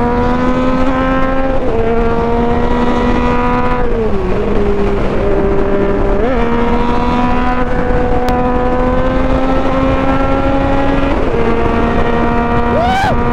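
Yamaha FZ-09 motorcycle's three-cylinder engine running at highway speed, its note creeping up and dropping back a few times as the throttle changes, over steady wind rush on the mounted camera's microphone.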